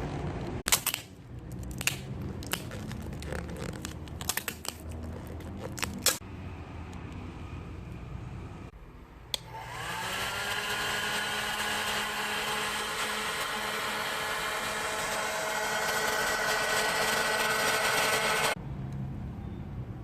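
Hair-dryer motor, rigged as a mini vacuum cleaner, spinning up with a rising whine and running steadily for about nine seconds before cutting off abruptly. Before it starts, a series of sharp clicks and knocks from handling the device.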